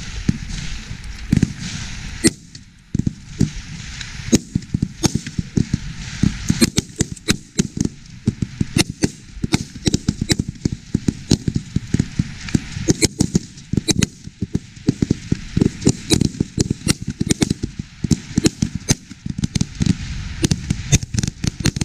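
Many rifles firing from a firing line: sharp, overlapping shots at an irregular pace, several a second, with a brief lull a couple of seconds in.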